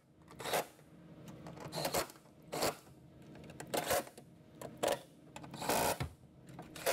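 Cordless impact run in a series of short bursts, about one a second, snugging down the 10 mm bolts that hold a car's metal windshield cowl.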